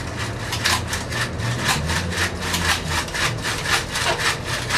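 Hand-squeeze generator lamp riding on a swinging pendulum, its small gear train and dynamo whirring with an even rasping rattle of about four to five strokes a second over a low hum.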